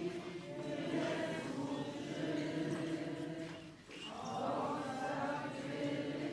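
Voices singing a slow hymn with long held notes, breaking off briefly about four seconds in before the singing resumes.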